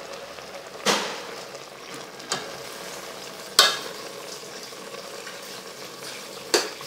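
A pot of soup bubbling with a steady hiss as a metal ladle stirs it, the ladle knocking sharply against the metal pot about four times: about a second in, twice in the middle and near the end.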